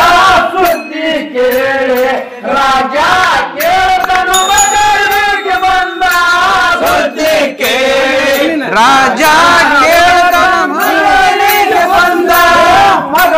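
Men singing a Kannada Muharram folk song (Moharram pada) loudly, in a chanting style with long held notes. Sharp percussive beats run through it.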